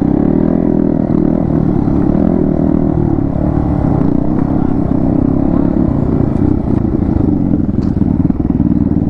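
Yamaha MT-15 V2's single-cylinder engine running steadily under way through an aftermarket Akrapovic exhaust.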